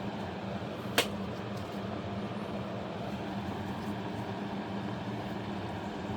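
Steady low mechanical hum, with a single sharp click about a second in.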